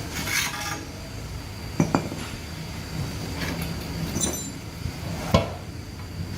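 Metal tools and parts clinking and knocking, with a few sharp strikes about two seconds in and again near the end, over a steady low hum.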